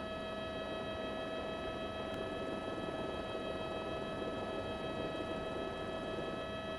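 Helicopter cabin noise: an even, steady hiss with a constant whine riding over it, unchanging throughout.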